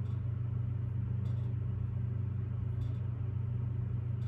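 A steady low hum runs unchanged underneath, with a couple of faint soft ticks about a second and three seconds in.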